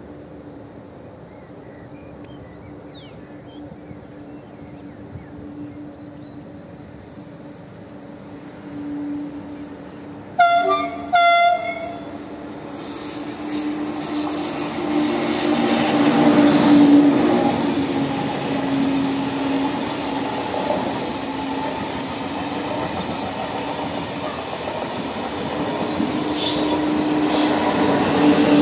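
TGV high-speed train giving two short horn blasts about ten seconds in, then its rolling noise swelling as it approaches and passes close, loudest about halfway through and staying loud as the rear cars go by. Small birds chirp in the first third.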